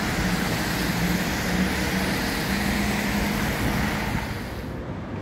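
City street traffic: cars driving past, a steady rush of tyre and road noise with a low wavering hum. The rush thins out sharply near the end.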